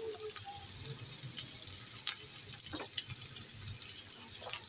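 Onions, tomatoes and whole spices frying in hot oil in a large pot: a steady sizzle with a few sharp pops and crackles.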